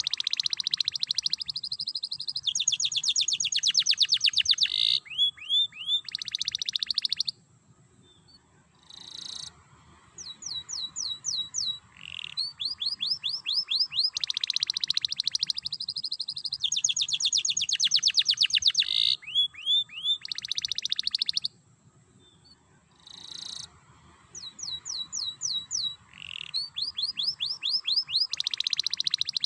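Domestic canary singing in long bouts of fast trills and rapidly repeated high notes, each bout several seconds long. The song breaks off twice, about seven seconds in and again about 21 seconds in, then resumes.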